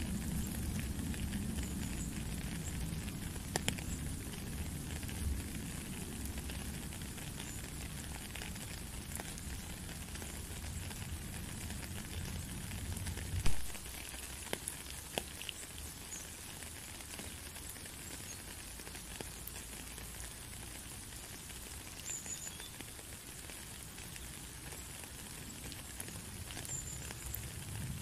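Rain falling steadily into a puddle on a stony path: an even hiss of rain with scattered drop ticks. A low rumble underneath cuts off suddenly about halfway through, at a single sharp knock.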